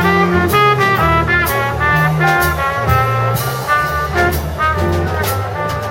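Small jazz group playing live: a horn plays quick runs of notes over changing bass notes and drums with steady cymbal strokes.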